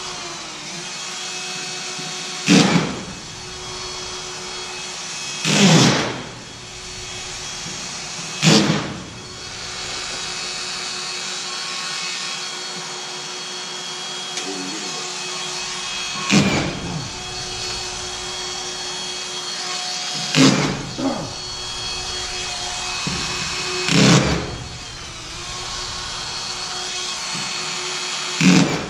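Drywall screw gun driving screws into drywall board in short bursts, seven times a few seconds apart, over a steady mechanical hum.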